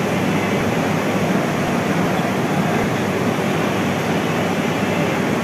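Steady rushing background noise of a railway platform beside a standing passenger train, with no clear single event or rhythm.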